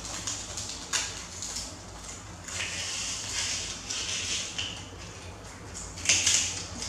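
Soft rustling and handling noises, with a sharp click about a second in and a louder rustling burst about six seconds in.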